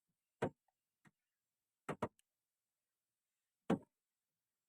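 Four short, sharp knocks: one about half a second in, a quick pair near two seconds, and one near the end, with silence between them.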